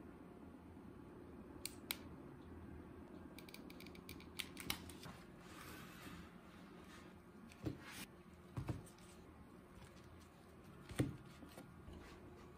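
Scattered light clicks and taps of silicone resin molds and a wooden stir stick being handled on a glass tray, the sharpest tap near the end, over a faint steady low hum.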